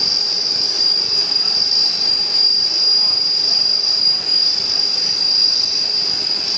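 Potato slice processing line machinery running: a steady mechanical noise topped by a constant high-pitched whine that holds one pitch.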